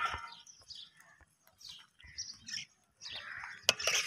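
Small birds chirping in short, scattered calls, with a sharp knock near the end.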